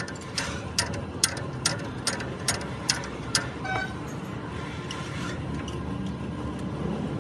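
Ratchet wrench on a leaf-spring U-bolt nut clicking in an even rhythm, a little over two clicks a second, that stops about halfway through; a low steady rumble remains underneath.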